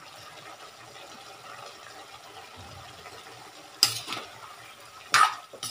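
Pork sizzling and simmering in soy sauce in an aluminium wok, a steady hiss. About four seconds in, and again about a second later, a metal spatula clanks and scrapes against the wok as the meat is stirred.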